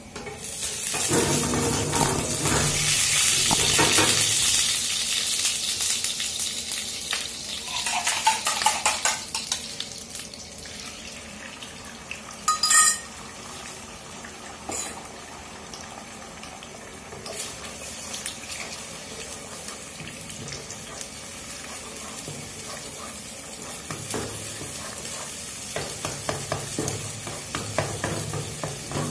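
Beaten eggs poured into hot oil and chopped garlic in a nonstick frying pan: a loud sizzle that starts about half a second in and fades over several seconds. A single ringing clink comes near the middle, and near the end a wooden spatula scrapes and stirs the scrambling eggs.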